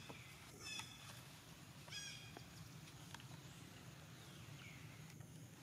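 Faint outdoor ambience with a short, high chirping call about two seconds in and a fainter falling call a little past four and a half seconds.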